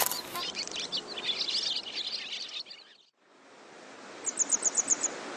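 Small birds chirping and singing. About three seconds in, the sound fades out and comes back as a steady hiss, with a quick run of about eight high ticks near the end.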